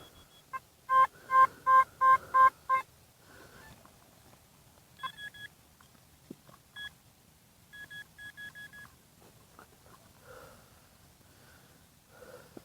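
Metal detector beeping as the coil sweeps over a buried target: a run of six loud low-pitched beeps about three a second, then a few short higher-pitched beeps and, about eight seconds in, a quick run of higher beeps.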